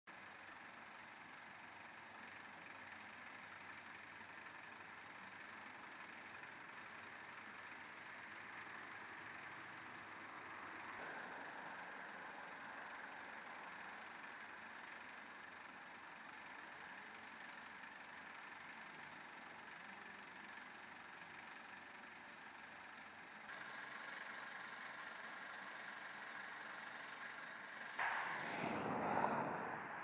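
Faint, steady outdoor background noise with no clear bird calls. It grows slightly louder about three-quarters of the way through, and a brief, louder rush of noise comes near the end.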